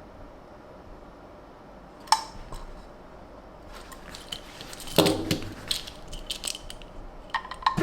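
Small hard clicks and clatter of a die-cast toy car and its packaging being handled: one sharp click about two seconds in, then a run of light knocks and rattles from about the middle on.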